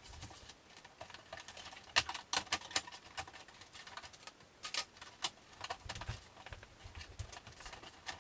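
Irregular clicks, taps and small plastic knocks of hand tools and screws as the plastic back cover of a flat-screen TV is worked open, with the sharpest clicks about two seconds in and just under five seconds in.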